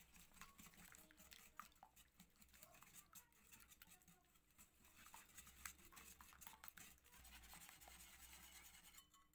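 Faint clicking and scraping of a wire whisk beating eggs with sugar and honey in a glass bowl, the tines ticking against the glass; it stops near the end.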